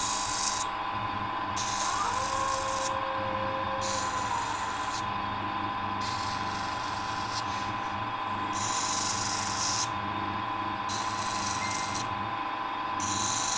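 Argon TIG welding torch firing in about seven short bursts, each a hiss lasting a second or so, over a steady faint high hum: tack-welding two pieces of a knife liner by fusing the metal without filler.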